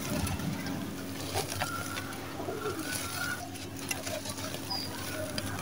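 Dry sand-cement chunks crushed and crumbled by hand: a steady gritty crackle of many fine grains, with dust and crumbs pattering down.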